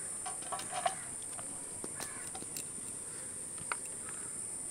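Steady high-pitched insect chirring, with a few faint short calls in the first second and again around two seconds in.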